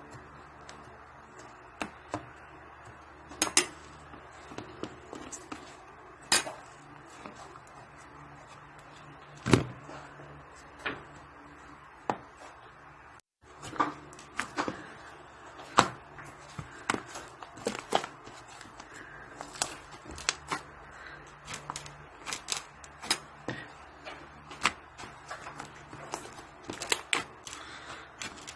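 Slime being squeezed and stretched by hand, giving irregular sharp clicks and pops, which come thicker in the second half. The sound drops out for a moment about thirteen seconds in.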